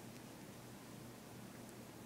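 Near silence: room tone, a faint steady hiss over a low hum.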